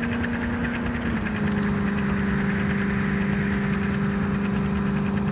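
Land Rover Defender's engine running with a steady hum that drops slightly in pitch about a second in.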